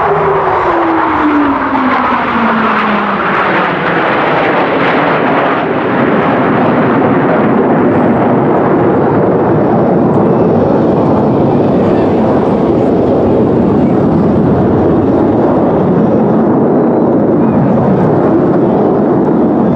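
Jet aircraft flying past: a tone falling steadily in pitch over the first few seconds, then loud, steady jet engine noise.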